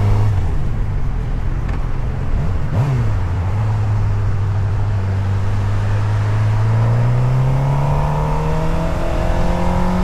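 Motorcycle engine running at a steady speed, with a quick blip of the throttle about three seconds in, then rising slowly in pitch as it accelerates over the last few seconds, with steady wind rush.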